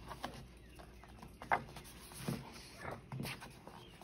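Pages of a paperback puzzle book being turned and smoothed down by hand: several short paper rustles.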